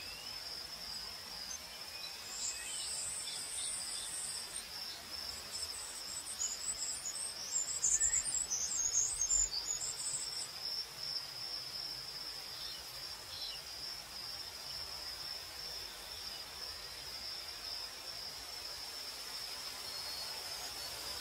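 Crickets chirping in a steady, high, continuous trill. A few seconds in, and again more loudly around the middle, higher chattering calls rise over it.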